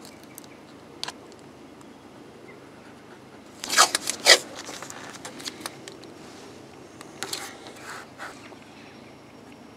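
Masking tape pulled off its roll and torn in a few short rasping strips, the loudest about four seconds in, with smaller rips and rubs as the tape is laid on the deck.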